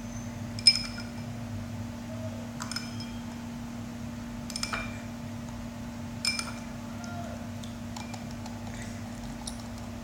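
A bowl clinking four times as things are knocked against it, with short ringing tones; the first clink is the loudest. A steady low hum runs underneath.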